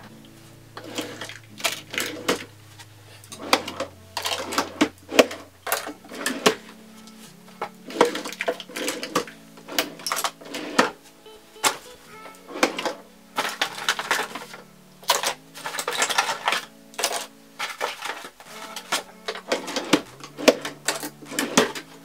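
Makeup items clicking and clattering as they are handled and set into drawers, over background music with low held notes.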